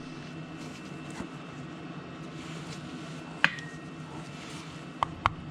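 Quiet handling noise, then a single sharp metallic clink with a short ring. Near the end, light, evenly spaced taps begin: a hammer tapping a wooden block to drive a thin crankshaft repair sleeve onto the crank snout.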